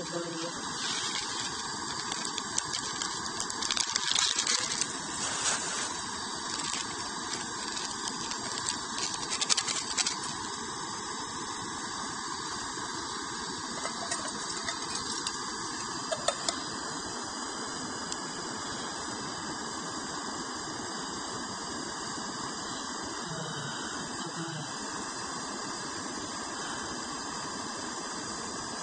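Gas camping stove burner hissing steadily under a metal pot. Over the first ten seconds a packet rustles and crinkles as it is emptied into the pot, with a couple of light clicks a few seconds later.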